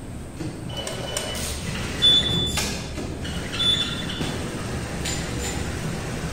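Computerized flat knitting machine with its carriage travelling along the needle bed rails over a steady low hum, with clicks and short high-pitched chirps, the loudest about two seconds in.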